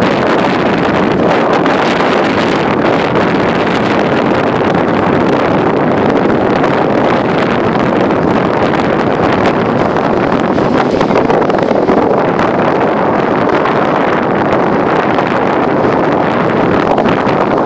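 Steady rushing noise of a boat under way on open water: engine and water noise mixed with wind buffeting the microphone.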